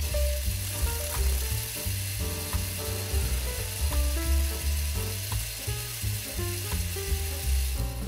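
Metal lathe turning a white plastic block held in a four-jaw chuck, the cutting tool peeling off shavings with a steady hiss. Background music with a stepping bass line plays underneath.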